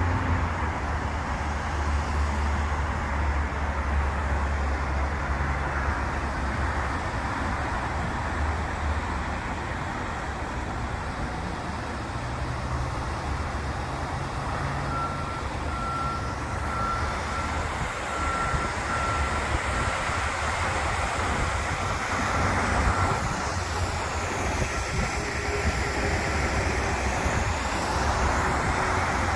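Steady road traffic noise with a heavy vehicle's low engine rumble, strongest in the first third. From about halfway in, a vehicle's reversing beeper sounds in a regular series of short high beeps for roughly twelve seconds.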